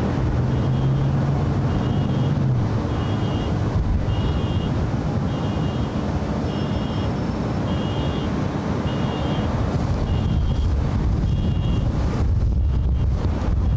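Jet engines of a departing Boeing 747 (VC-25A Air Force One) rumbling steadily as it climbs away, mixed with wind buffeting the microphone. A faint high beep repeats about once a second.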